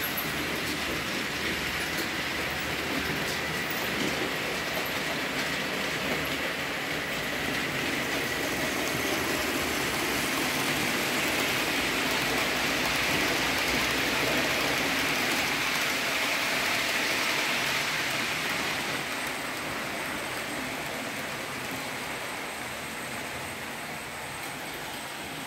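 Several Märklin model trains running on the layout: a steady whirr and rattle of small locomotive motors and metal wheels on the rails, growing louder toward the middle and easing off over the last several seconds.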